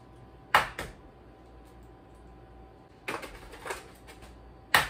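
Eggs being tapped and cracked against the rim of a ceramic mixing bowl: sharp taps, two about half a second in, a cluster around three seconds and a loud one near the end.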